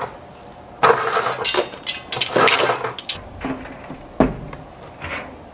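A roller blind being pulled up by its plastic bead chain: three rattling, rolling bursts in quick succession. About four seconds in comes a single sharp knock as the window frame is handled.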